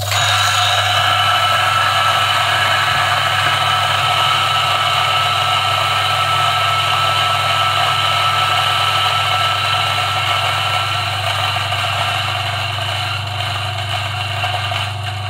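DF64 64 mm flat-burr coffee grinder grinding a single dose of espresso beans: a steady motor hum under a dense grinding rasp and a thin whine. The grinding starts abruptly and thins out over the last few seconds as the last beans pass through the burrs.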